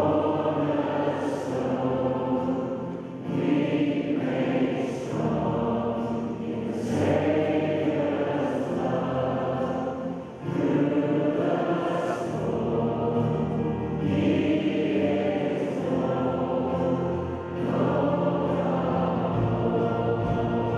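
Large congregation and choir singing a hymn together in a reverberant cathedral. The singing comes in lines, with brief dips between phrases at about three, ten and seventeen seconds in.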